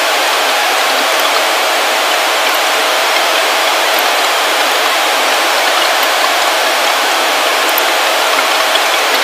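Steady loud hiss of an open recording microphone with no low end, with a few faint clicks.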